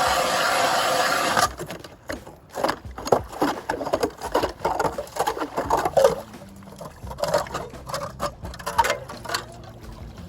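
Ice auger drilling a fishing hole through pond ice: a loud steady hiss that cuts off abruptly about a second and a half in, followed by irregular scraping and crunching of ice chips.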